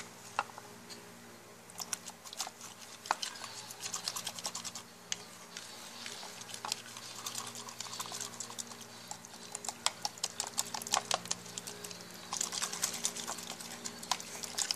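A spoon stirring slime through water and shampoo in a bowl: a quick, irregular run of small clicks and wet squelches, thickest near the end.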